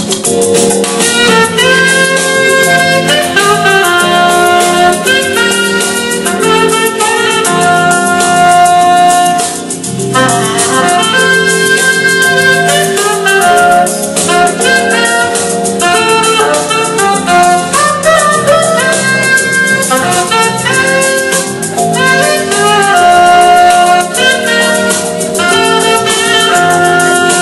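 Saxophone playing a melody of held and moving notes over an accompaniment with a bass line, dipping briefly about ten seconds in.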